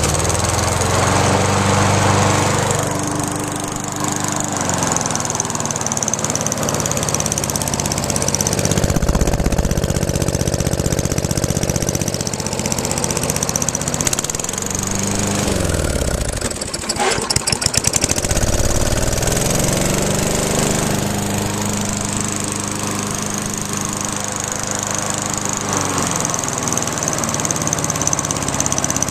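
Old Montgomery Ward push mower's small single-cylinder engine running on a small aftermarket Briggs & Stratton muffler. Its speed wavers, sagging and picking back up several times, with one deep dip about halfway through.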